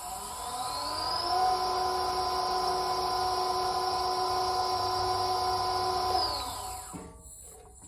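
Electric Z-axis height-adjustment motor of a Huvema HU 45 DM geared-head milling machine driving the head along the column. Its whine rises in pitch as the motor spins up over about a second, runs steady for about five seconds, then winds down a little after six seconds.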